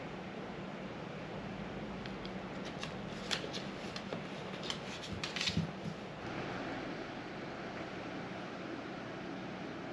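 A quick run of light clicks and rustling, from about three seconds in to about six seconds in, over a steady background hiss with a faint low hum.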